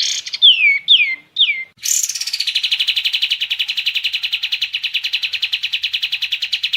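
Kapas tembak (pied triller) singing: three quick whistled notes sliding down in pitch, then, about two seconds in, a long, fast, even trill of about ten notes a second.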